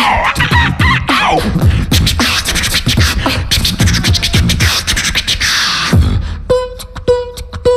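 Two beatboxers performing together into microphones: a steady beat of deep kick drums that drop in pitch, with sharp hi-hat and snare clicks. About six seconds in, the dense beat thins out to a short pitched tone repeated in rhythm between clicks.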